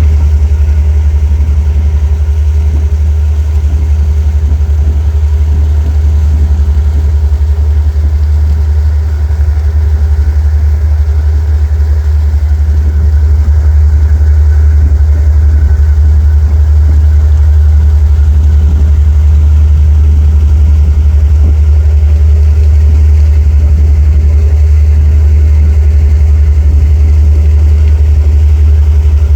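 A boat's engine running loud and steady, a constant low hum that grows slightly louder about halfway through.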